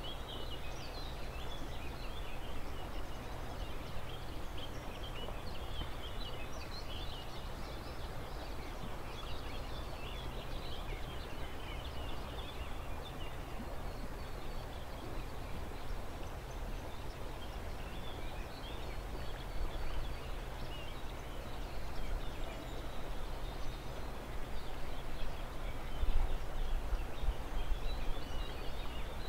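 Birds singing and chirping in riverside woodland over a steady rushing noise and a low rumble, with louder bumps in the rumble in the last few seconds.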